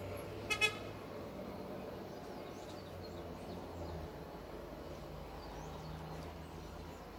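Steady low background hum, with a short, loud double beep about half a second in.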